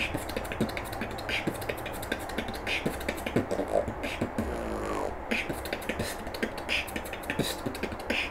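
Beatboxing: a fast beat of mouth-made clicks and hits. About four to five seconds in, a lip roll comes in, a pitched buzzing of the lips that bends in pitch.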